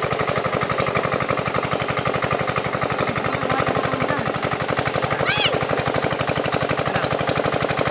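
Small engine chugging steadily with a rapid, even beat, of the kind run beside a pond to pump out the water.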